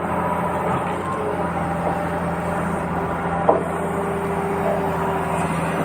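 Electric motors and gearing of a radio-controlled model truck or excavator running steadily with a held whine, and a single sharp click about three and a half seconds in.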